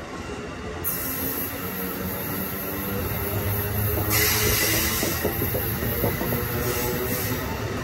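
Amtrak Northeast Regional Amfleet passenger coaches rolling past, a steady rumble of steel wheels on the rails, with a louder hissing rush starting about four seconds in.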